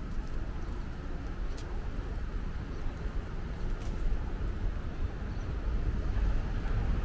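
City street ambience dominated by a steady low rumble of road traffic, with two faint clicks about one and a half and four seconds in.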